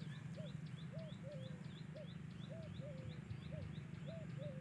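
A bird calling over and over in short arched notes, about three a second, with fainter high notes alongside and a steady low hum beneath.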